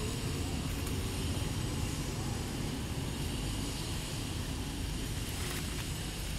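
Steady low rumbling background noise with a hiss over it, with no distinct event standing out.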